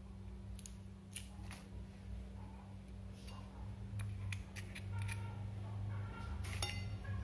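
Eggs being cracked: sharp taps of eggshell against a metal spoon and shells broken open by hand over a glass mixing bowl, followed by the spoon stirring and clinking against the glass, with one ringing clink near the end. A steady low hum runs underneath.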